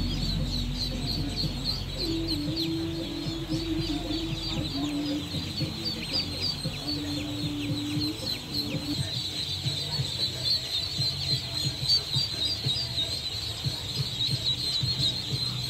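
A large flock of ducklings peeping all at once: a dense, unbroken chorus of high, short peeps.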